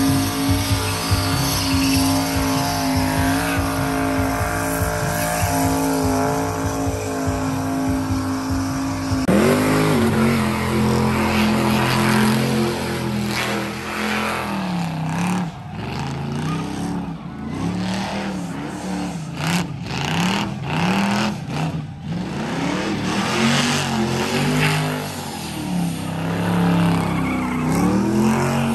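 A burnout truck's engine held at high, steady revs with the rear tyres spinning and squealing. About nine seconds in, the revs drop suddenly, then swing up and down again and again as the driver works the throttle through the burnout.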